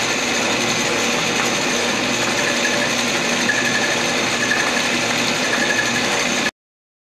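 Metal lathe running, its chuck spinning a thin steel shaft that is held without a tailstock centre and wobbles. Steady machine noise with a faint, on-and-off high squeal from about two and a half seconds in, then the sound cuts off abruptly near the end.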